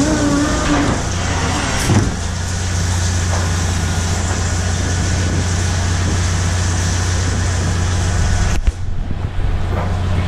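Steady running of a shrimp trawler's engine and deck machinery: a constant low hum with broad mechanical noise over it. A higher whine fades out about a second in, and there is a brief knock near two seconds.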